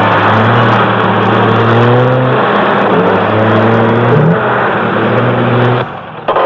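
Loud engine-like whirring with several pitches that step and glide, cutting off suddenly near the end, followed by a brief sharp crack.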